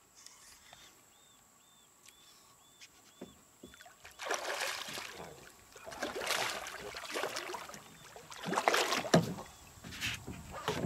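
A hooked Papuan black bass thrashing at the surface beside the boat, splashing water in several bursts that begin about four seconds in.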